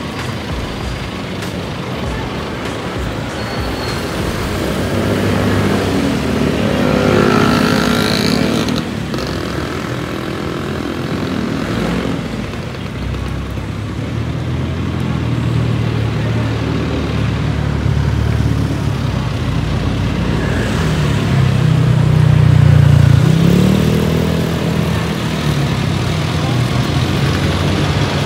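Road traffic: motor vehicles running by close at hand over steady road noise. Two louder engines pass, rising in pitch as they speed up, one about six seconds in and another after about twenty seconds.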